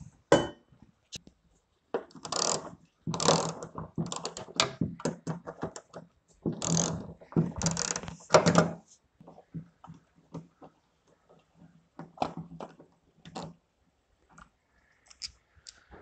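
Metal tape measure rattling and clicking as its blade is drawn out and let back in, in several short bursts over the first nine seconds, then a few lighter clicks.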